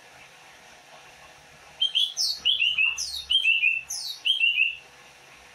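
Cucak ijo (greater green leafbird) singing its 'bebeci' song: three similar phrases of about a second each, a burst of quick, falling, whistled notes, starting about two seconds in.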